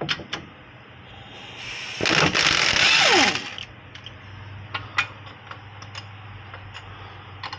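A powered ratchet runs for about two seconds, backing out a rear wheel hub bolt, and its pitch falls as it winds down. A few light metallic clicks follow.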